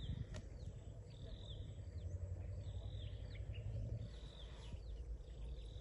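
A bird calling over and over, about once a second: each call a short high note that ends in a quick falling slur, over a low steady background rumble.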